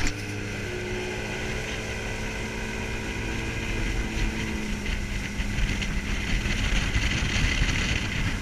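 Bass boat's outboard motor running under way, with wind and water rushing past. The steady engine tone fades about halfway through as the rushing noise grows louder.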